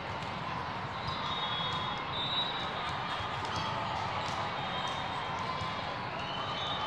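Busy sports-hall din of volleyballs being hit and bouncing on the courts, many scattered short thuds, over the background chatter of a large crowd.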